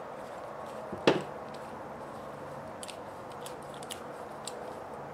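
Hex driver working small screws into the aluminium lockouts of an RC rock-crawler axle: one sharp click about a second in, then a few faint light ticks, over a steady low hum.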